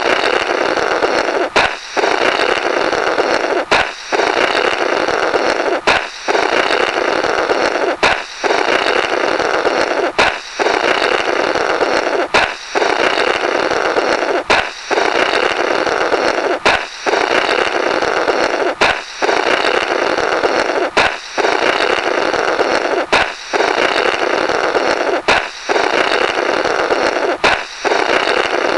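Cartoon sound effect of a balloon popping, followed by a comical 'blorrrt' of air blown through the burst balloon's remnants. It repeats about every two seconds, each time a sharp pop and then a long noisy blow.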